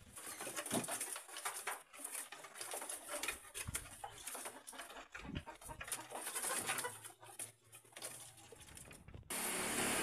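Faint irregular clicking, knocking and rustling as a small feed dish is pushed through a cage door and set down, with birds calling around it. Near the end a louder steady hiss comes in.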